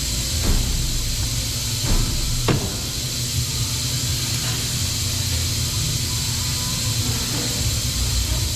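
A Phillips screwdriver fitting into and turning the screw behind a door trim panel's handle-cup tab, with a few light clicks in the first few seconds. A steady hiss and low rumble run underneath.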